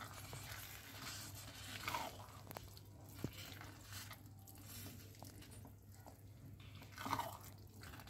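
A plastic spatula stirring thick, soft khichuri in a nonstick pan, with faint squelching and scraping of the rice against the pan. A louder stroke comes about two seconds in and again near the end. This is the ghee tempering being mixed through the finished dish.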